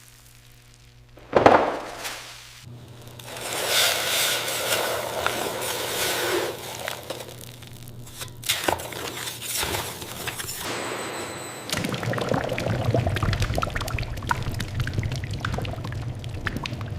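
Liquid pouring and splashing, an uneven rushing that grows denser and steadier in the last five seconds, with a sudden loud hit about a second and a half in.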